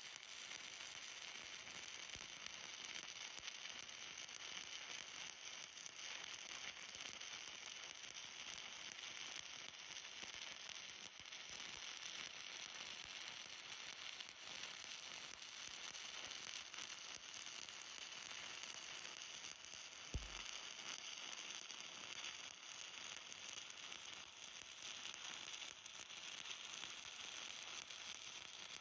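Shielded metal arc welding with a 1/8 inch 7018 stick electrode at 120 amps, run vertical-up: a steady, faint crackling sizzle from the arc. A single brief thump comes about two-thirds of the way through.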